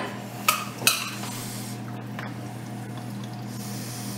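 Metal kitchenware clinking twice in quick succession, about half a second and a second in: a metal spoon knocking against a stainless-steel saucepan as it is picked up for plating. A steady low hum runs underneath.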